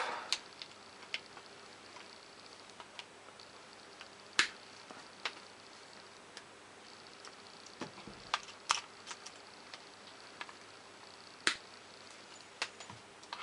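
Cutters snipping the protruding ends off pins on a Lister D engine governor: three sharp snaps a few seconds apart, with lighter clicks of the tool and parts being handled in between.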